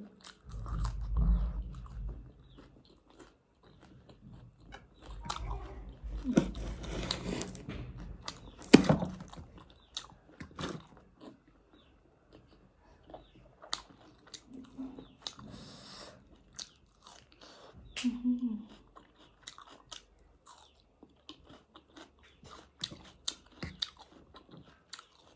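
Close-up chewing and biting of a meal of pork and instant noodles, with many wet mouth clicks and smacks and occasional crunches. There are two short hummed sounds from the eater near the middle.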